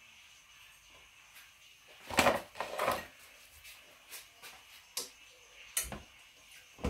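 Kitchen handling noises: a short cluster of clunks about two seconds in, then a few single knocks, with no frying sizzle yet.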